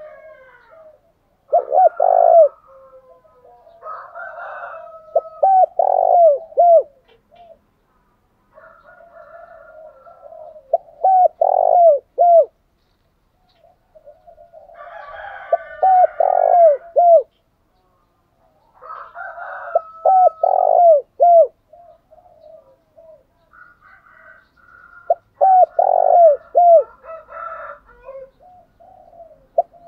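Spotted doves cooing in repeated bouts about every four to five seconds: each begins with a softer, rougher murmur and ends in a few loud, short coos that slide down in pitch.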